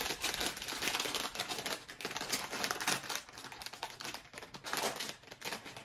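Plastic blind-bag pouch crinkling and crackling as it is pulled open and handled, a dense run of irregular crackles.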